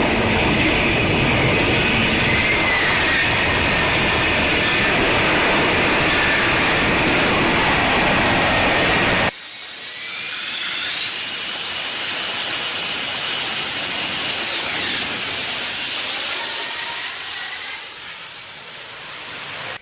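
F-35B's F135 jet engine and shaft-driven lift fan running at hover power: a loud, steady rush with a high whine. About nine seconds in it cuts to a quieter jet whine with tones sliding in pitch, which fades near the end.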